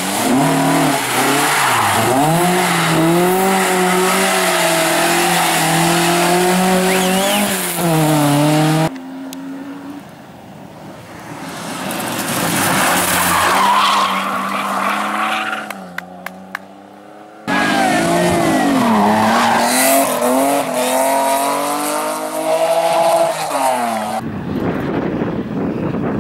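Rally cars at full throttle on a stage, one after another, their engines revving hard with the pitch climbing and dropping through gear changes. The sound cuts off abruptly between passes.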